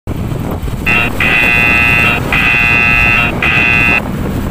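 A loud, steady horn-like tone sounds in four bursts of uneven length and stops about four seconds in, over the constant rumble of wind and traffic noise from riding.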